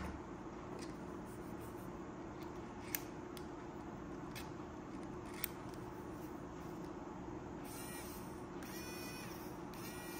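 Wowstick 1F+ electric precision screwdriver's small motor running in three short spins near the end, each a high whine that rises and falls in pitch. Before that, a couple of light clicks as a bit is seated in the screwdriver's tip.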